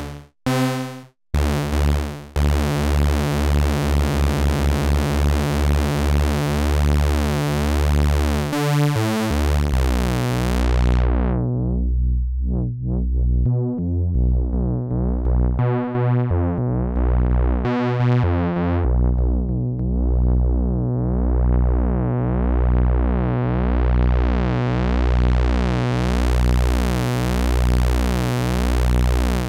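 Behringer Model D analog monosynth playing a sustained, pulsing bass tone while its knobs are turned. About ten seconds in the filter closes and the sound goes dull, flares bright in brief bursts, then over the last ten seconds the filter slowly opens and the tone brightens again.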